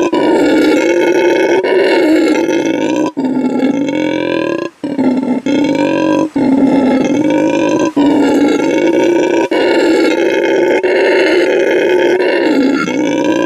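Lion roar sound effect, repeated over and over in segments of about a second and a half with brief breaks between them.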